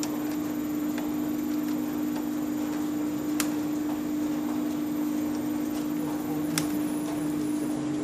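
Steady electrical hum from an industrial washing machine's control cabinet, which holds an inverter drive and contactors. Two sharp clicks come about three seconds apart as a screwdriver works the terminal screws.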